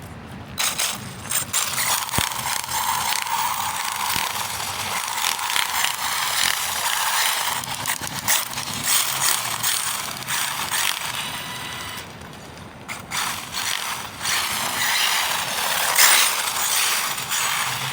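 Arrma Typhon RC car driving and drifting on asphalt with tape-wrapped wheels: its electric drivetrain whirs and clatters under a continuous rough scraping from the taped tyres, easing off briefly about twelve seconds in.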